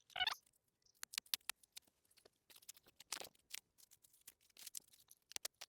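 Packaging wrap being pulled off and handled by hand, giving a string of irregular crinkles and crackles.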